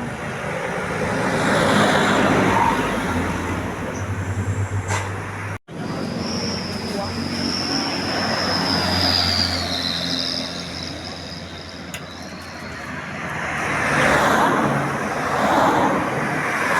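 A large tour bus's diesel engine running at low speed amid road traffic, with a thin high whine that slides down in pitch over several seconds in the middle.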